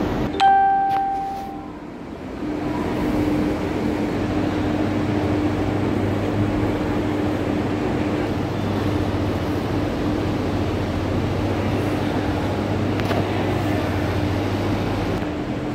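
A single bell-like tone rings out about half a second in and fades over about a second. Then the steady drone of large industrial ventilation exhaust fans runs on, with a low hum under it.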